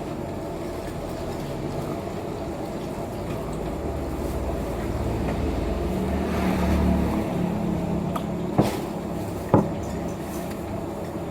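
Steady low background rumble that builds in the middle and fades again, with two sharp clicks or knocks about a second apart near the end.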